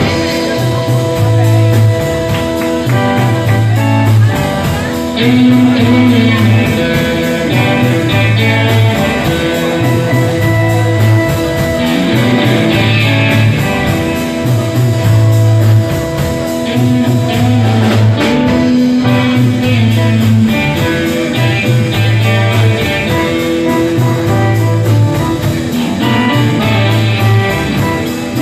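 Live rock band playing: electric guitar over a steady, repeating bass line.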